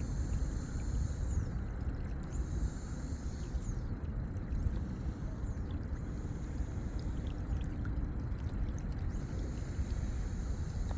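Steady low rumbling outdoor ambience. A faint high whine sits above it, falling away in pitch and returning several times.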